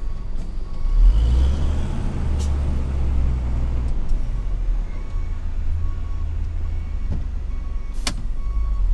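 Dump truck's diesel engine running, heard from inside the cab as it reverses to unload, with its reversing beeper sounding steadily at under two beeps a second. The engine is louder from about one to four seconds in, and a short sharp noise comes near the end.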